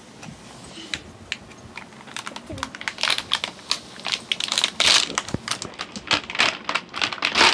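Stiff clear plastic packaging crackling and clicking as it is handled and pulled at, in a quick irregular run of clicks that gets busier and louder from about three seconds in.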